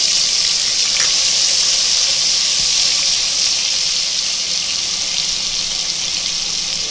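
Ginger-garlic paste sizzling in hot oil in a pot, a steady hiss that eases slightly toward the end.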